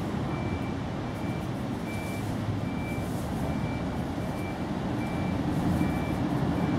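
A vehicle's reversing alarm beeping at an even pace, about once every three-quarters of a second, over a steady low rumble.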